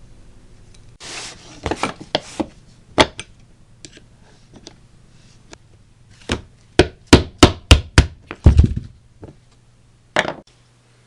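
Hand-tool work: a scatter of sharp knocks and taps, then a quick run of about seven knocks at roughly three a second, with a last knock near the end.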